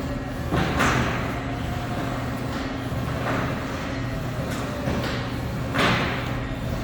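Shake table running a dynamic seismic test on a truss-mounting bracket rig: a steady low machine hum with a rattling clatter of the shaken rig coming roughly every second, loudest about a second in and near six seconds.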